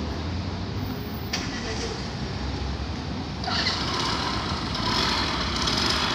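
Daewoo Matiz small hatchback driving slowly past over cobblestones, its engine and tyre noise growing louder about three and a half seconds in, over a steady low rumble of vehicle engines.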